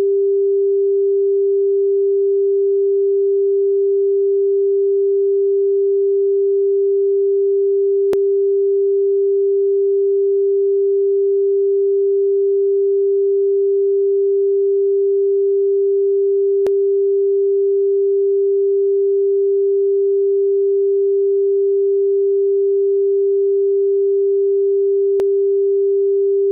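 A steady, pure electronic sine tone at 396 Hz, held at one pitch and level throughout, with faint clicks about a third and two thirds of the way in and again near the end.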